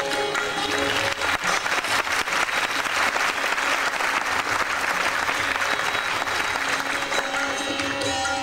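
Concert-hall audience applauding, building about a second in and dying down near the end as the sitar comes back in.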